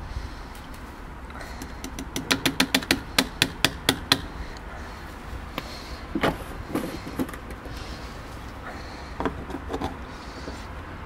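A washing machine being handled: a quick run of about a dozen sharp clicks, around five a second, then a sharp knock followed by a few lighter knocks and taps.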